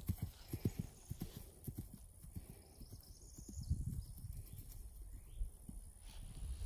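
Hoofbeats of a grey Connemara mare cantering on grass, a run of dull low thuds.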